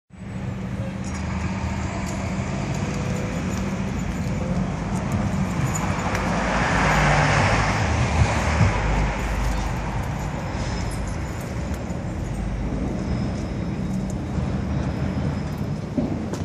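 Jeep Grand Cherokee SRT8's Hemi V8 rumbling at low speed as it pulls up and drives past, growing loudest about seven to eight seconds in and then easing off, with street traffic noise around it.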